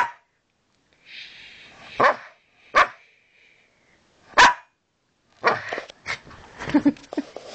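Small long-haired dog barking: single sharp barks a second or two apart, then a quicker string of barks near the end.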